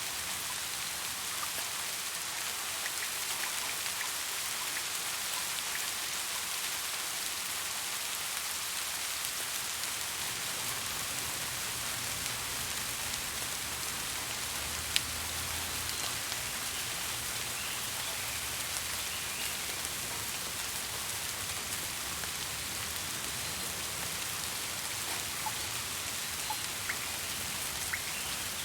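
Steady rain falling, an even hiss with individual drops ticking on a surface and one sharp drip about halfway through. A faint low rumble comes in under it for a few seconds in the middle.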